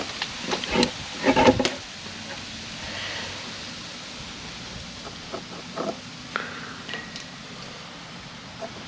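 Clicks and knocks of a brass air-hose fitting being worked off a sprinkler line's blowout adapter, loudest in the first couple of seconds, followed by a few fainter handling clicks as the fitting and a plastic cap are handled.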